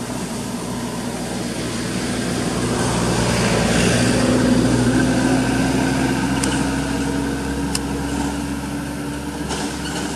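A motor vehicle engine running steadily nearby, growing louder over the first few seconds and then slowly fading.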